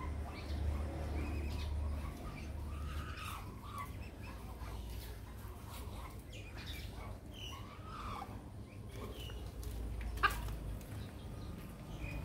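Red junglefowl clucking in short scattered calls over a steady low rumble, with one sharp click about ten seconds in.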